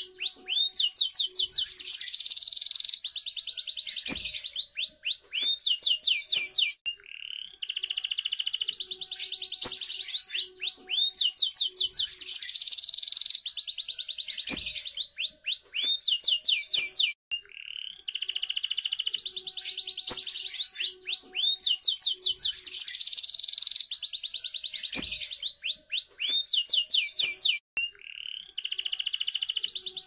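Domestic canary singing a continuous song of fast trills and rapid series of rising-and-falling notes, broken by short pauses about every ten seconds.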